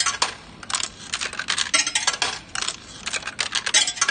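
New 10-sen coins dropped one after another into a CC6100 coin changer's acceptor. They clatter and click through the mechanism in several quick bursts as it is calibrated to learn the coin.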